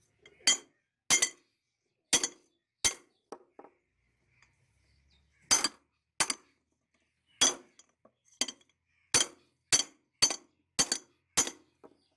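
Hammer blows on a steel pipe: about fifteen sharp, ringing metal strikes at an uneven pace, with a pause about four seconds in and quicker blows near the end.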